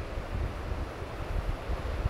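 Strong northeast monsoon wind buffeting the microphone in uneven gusts of low rumble, over a steady hiss of wind and rough sea.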